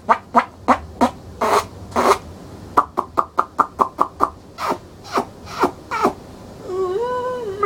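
A person's voice making silly animal-like noises: a quick string of short clucking yelps, about four or five a second with a few pauses, then a long wavering meow-like wail starting near the end.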